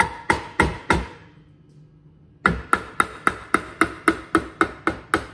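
A mallet tapping an aluminium gearbox top plate down over its bearing fits and dowel pins, each blow with a short metallic ring. Four quick taps, a pause of about a second and a half, then a steady run of taps at about four a second.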